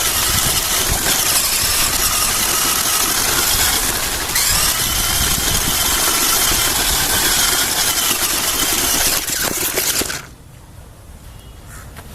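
RC monster crawler's electric motor and gearbox whining as it drives, the pitch rising about four seconds in and easing off again, then cutting off suddenly about ten seconds in.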